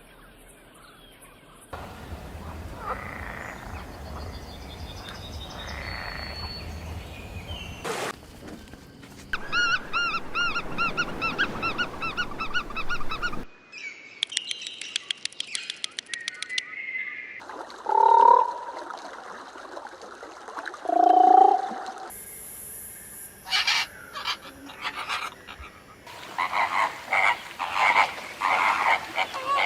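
Animal calls in a series of short clips cut one after another, each lasting a few seconds, mostly repeated croaking or chirping calls.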